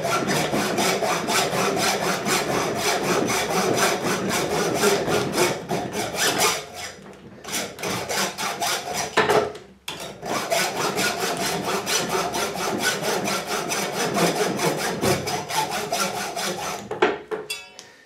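Hacksaw cutting back and forth through the soft aluminium lock body of an ABUS four-wheel combination bike lock, in quick even strokes; the blade bites easily into the soft metal. The sawing eases off for a moment about 7 seconds in, stops briefly near 10 seconds, and dies away shortly before the end.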